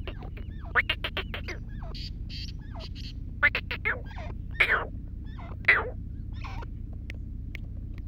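Grey francolins calling: quick runs of sharp, repeated notes and several loud ringing calls, the loudest about four and a half and five and a half seconds in.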